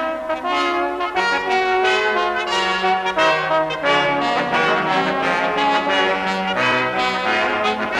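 Background music: brass playing slow, held chords.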